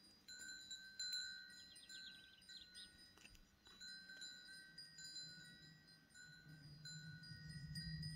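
Faint chiming: several clear high tones ring and overlap, each held about a second before stopping and starting again. A low hum swells near the end.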